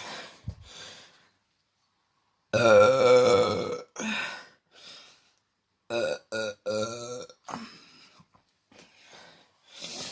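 A woman burping: one long, loud burp about two and a half seconds in, a shorter burp right after, then a quick run of three short burps about six seconds in.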